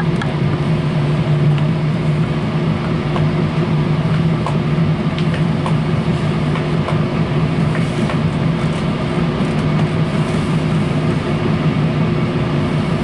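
Inside a moving passenger train: a steady rumble of running noise with a low, even hum and occasional faint clicks from the track.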